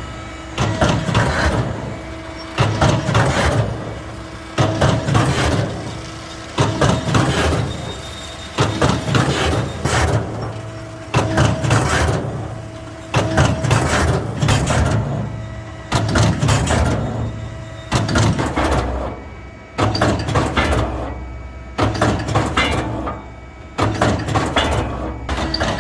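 GEA (CFS) MultiFormer 600 meat-forming machine running through its forming cycle: a burst of mechanical clatter and knocks about every two seconds, each fading away, over a steady electrical hum.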